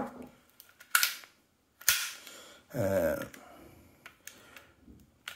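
Sharp plastic-and-metal clicks and knocks from an airsoft gas blowback pistol and its weapon light being handled and set down on a table: three clicks about a second apart, then fainter handling noise.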